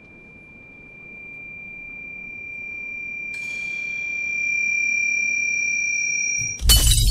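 Sound-design effect for the supernatural barrier straining and then being breached: a high steady ringing tone swells in loudness, joined about three seconds in by a second, higher tone and a faint hiss. Near the end it cuts off into a sudden loud crash with a deep rumble.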